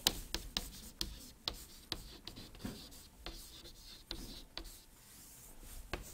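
Chalk writing on a classroom chalkboard: irregular sharp taps and light scratches, fairly faint.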